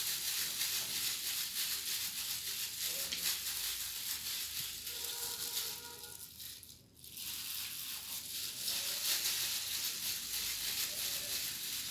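Clear plastic gloves crinkling and rustling as the hands roll coconut laddu mixture into a ball between the palms. The rustle is steady and hiss-like and drops away briefly past the middle. Just before that drop, a faint steady tone sounds for about a second.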